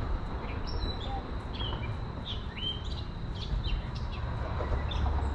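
Songbirds chirping and calling, many short quick notes overlapping, over a steady low rumble.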